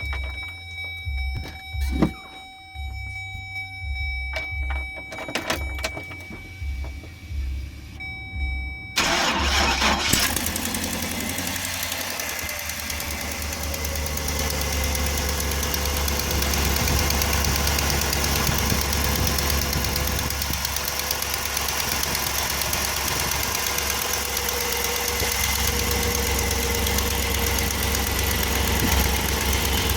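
Chevrolet Express 3500 van's engine starting about nine seconds in, then running steadily at idle. Before it starts there are a few low thumps and a steady high tone.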